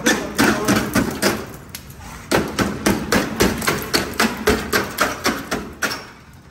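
A screwdriver jabbing and knocking at the rusted-through front fender wheel arch of a 2001 Dodge Ram 2500. It makes a rapid series of sharp knocks, about three or four a second, with a short pause about two seconds in, as the rotten metal breaks away.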